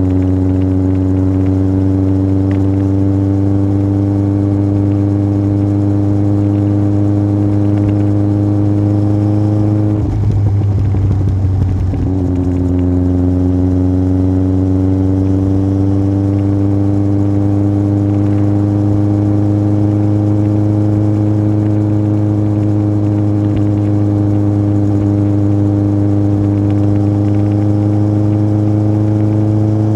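Yamaha Fazer 1000's inline-four engine running through an aftermarket MIVV exhaust under way, its note climbing slowly. About ten seconds in the note breaks off for a couple of seconds, then comes back lower and climbs again.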